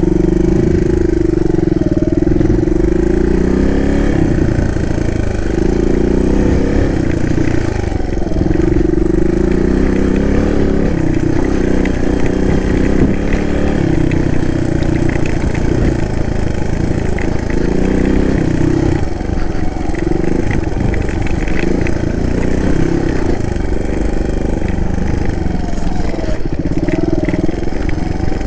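Suzuki DR200 dual-sport motorcycle's single-cylinder four-stroke engine running as it is ridden, the revs rising and falling over and over with throttle and gear changes.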